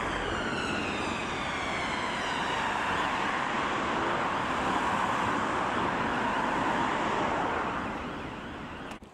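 Emergency vehicle siren in a slow falling wail over the first two seconds or so, giving way to the noise of vehicles moving on the road. The sound fades about eight seconds in and cuts off abruptly near the end.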